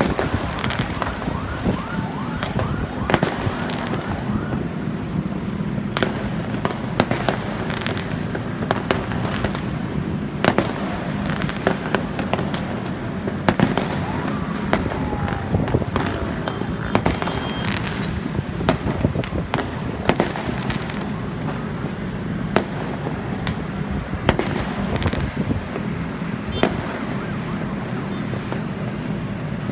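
Fireworks going off without pause: many sharp bangs at irregular intervals over a constant crackle, with whistling rockets gliding in pitch near the start.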